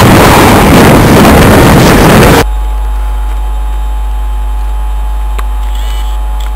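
Intermodal container freight train passing close by at speed: a loud, dense rush of wagon and wind noise that cuts off abruptly about two seconds in. After that, a much quieter steady low rumble.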